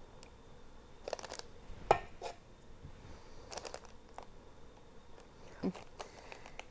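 A few soft scrapes and light taps of a utensil putting cream filling onto a whoopie pie cake, with one sharper click about two seconds in.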